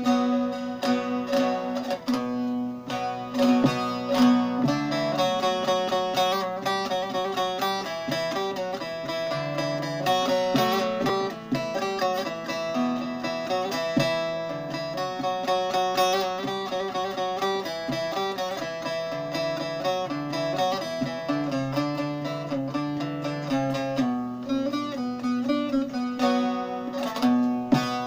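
Solo bağlama (Turkish long-necked lute) played fast, picking a folk melody over a steady low ringing note. It is the instrumental introduction to a Turkish folk song, before the singing comes in.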